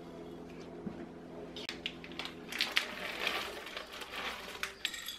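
Crinkling of a snack bag and dry rustling and clicking as sliced almonds are tipped onto rolled oats in a glass mixing bowl, starting a couple of seconds in, after a child's hand stirs through the oats. A steady low hum sits under the first half.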